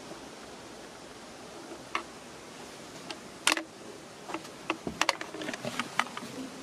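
Scattered sharp knocks and clicks from someone clambering out of the rusty steel cab of an abandoned narrow-gauge locomotive: one loud knock about three and a half seconds in and a quick cluster near the end, over a steady rustling hiss.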